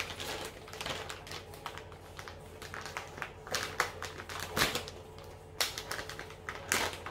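Plastic bag of shredded cheese being handled, crinkling in a run of irregular rustles and crackles, with a few louder crackles around the middle. A faint low steady hum underneath.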